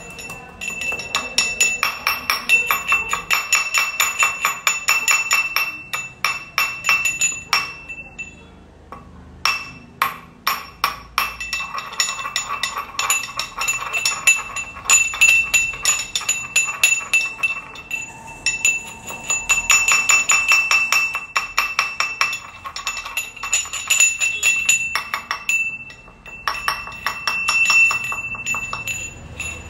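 Steel pestle pounding cloves to powder in a small stainless-steel mortar: rapid metallic clinks, the cup ringing with each strike, in runs broken by a few brief pauses.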